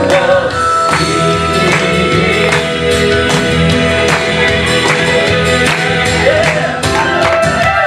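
Live gospel worship music: a band playing between sung lines, with regular percussion strokes and a held sung note at the start and again near the end.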